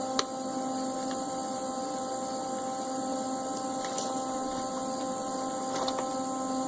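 A steady electrical-sounding hum made of several even pitched tones, with one sharp click a moment after the start and a couple of faint ticks later.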